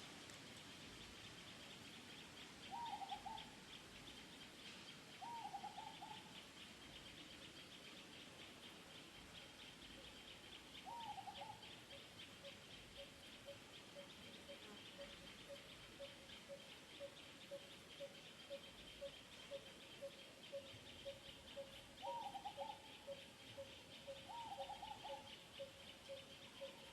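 Faint natural ambience: a steady high insect buzz, with five short animal calls spread through it and, from about ten seconds in, a soft regular pulse about twice a second.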